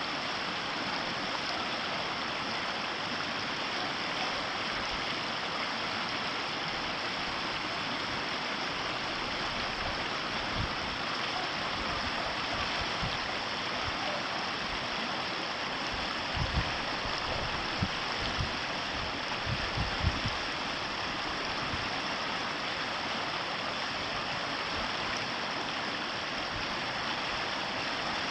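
River water rushing and flowing steadily, with a few brief low thumps about midway through.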